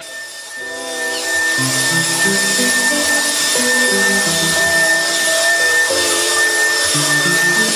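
Bissell stick vacuum cleaner running on carpet: a steady high whine over a rush of air, swelling about a second in. Background music with a simple stepping melody plays along with it.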